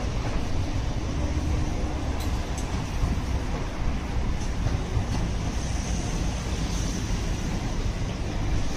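Steady low background rumble with a few faint light knocks.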